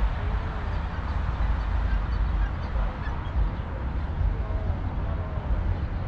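A choppy low rumble throughout, with a few faint, short, wavering honk-like bird calls scattered through it.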